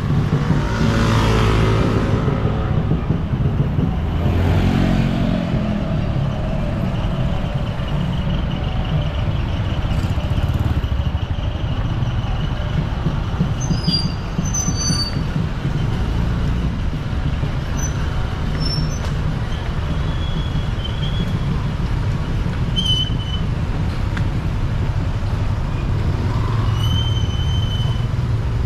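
Roadside traffic of jeepneys, cars and motorcycles running with a steady low rumble, with two vehicles swelling past close by about one and four seconds in. A few short high-pitched tones sound now and then over the traffic.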